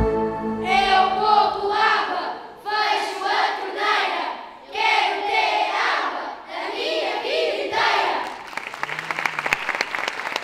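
A group of children's voices calling out together in unison in several short phrases. Applause from the audience starts about eight seconds in.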